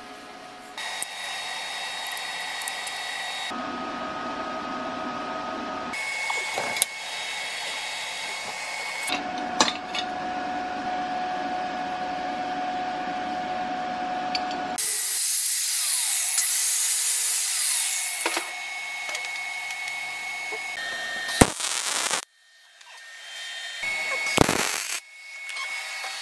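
Metal workshop tool sounds in a run of short clips that change abruptly every few seconds: scraping and rubbing on steel, with a few sharp knocks and a stretch of louder hissing tool noise.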